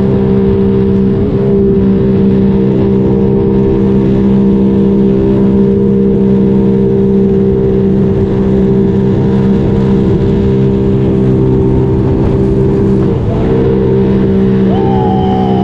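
The 2021 Spark Evo personal watercraft's engine running at a steady high throttle and holding one even pitch, over the rush of spray against the hull. Its pitch and level briefly dip near the end, then recover.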